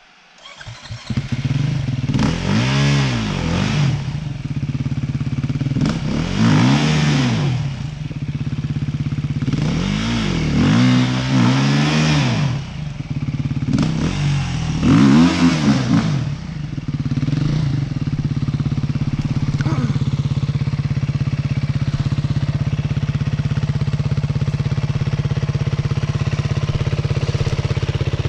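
Two-stroke dirt bike engine revved in repeated surges, pitch rising and falling five or six times, as the rider fights for traction on a slick, muddy climb; it then settles to steady running.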